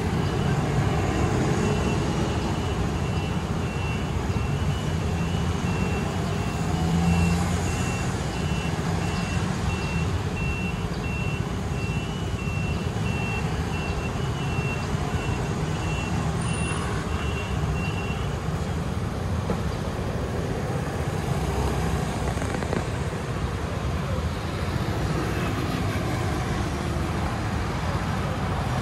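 Steady street-intersection traffic, with scooter and car engines running and passing. A vehicle's electronic warning beeper sounds in a regular, repeating pattern and stops a little past halfway.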